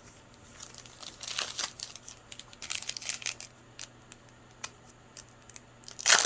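Plastic trading card pack wrapper crinkling and tearing in the hands as a pack is opened, in several short bursts, the loudest near the end.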